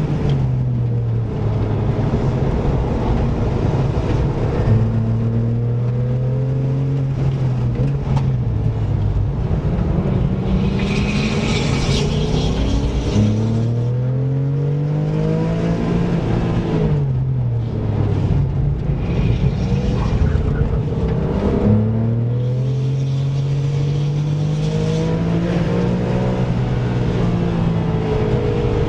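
Car engine under hard driving on a race track, heard from inside the cabin: the engine note climbs through the revs under acceleration, drops at gear changes and falls away under braking and downshifts, several times over. A brief high hiss comes in about eleven seconds in.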